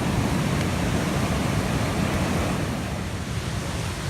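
Sea surf washing onto a sandy beach, a steady rush of waves, with wind rumbling on the microphone.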